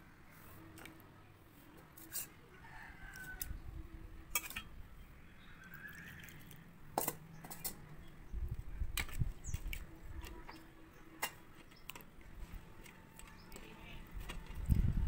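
Steel spoon clinking against steel bowls, with wet thumps and splashes from a hand mixing and squeezing pearl millet dough into water, loudest about eight seconds in and near the end. A chicken calls a couple of times in the background.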